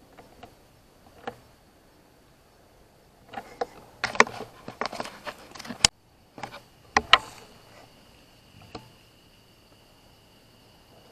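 Irregular rustling and clicking, densest in the middle, with one sharp crack among them, over a steady high insect drone that grows a second, lower tone about seven seconds in.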